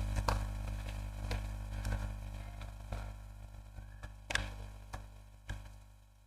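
Rubik's Cube layers being turned by hand: a string of irregular plastic clicks, a few seconds apart, over a low steady hum.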